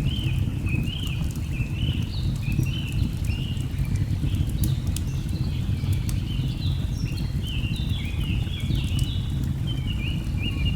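A layered nature ambience: the steady low rush of a waterfall, birds chirping in quick, repeated short rising notes, and the scattered sharp crackles of a wood fire.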